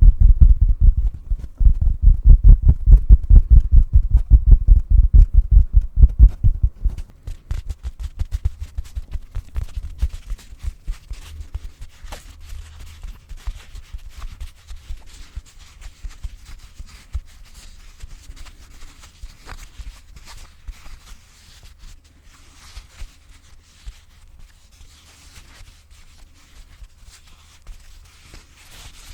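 A pillow patted and tapped rapidly close to the microphone, giving loud, low, muffled thumps. After about seven seconds this gives way to quieter, lighter scratching and tapping on the pillow's fabric.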